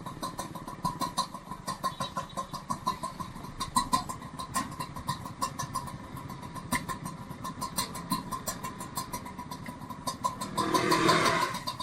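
Small vehicle engine running with an even, rapid ticking of about five beats a second. A louder rushing sound swells about ten and a half seconds in and fades by the end.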